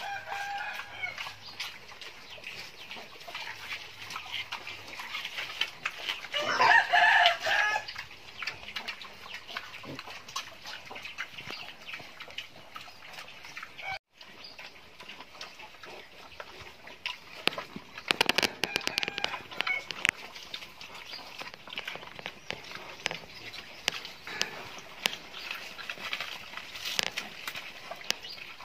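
Farmyard chickens: a rooster crows once about seven seconds in, the loudest sound, and hens cluck on and off. Beneath them run short clicks and crunches of pigs chewing feed scraps.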